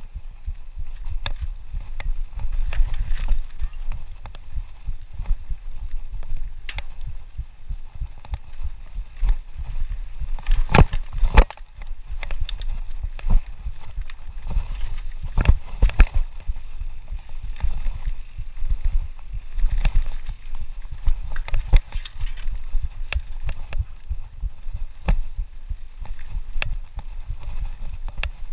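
Mountain bike rolling over roots and rocks on a dirt singletrack, heard from a camera riding on the bike or rider: a constant low rumble and thumping from the bumps, with sharp clicks and rattling knocks from the bike, a few louder knocks near the middle.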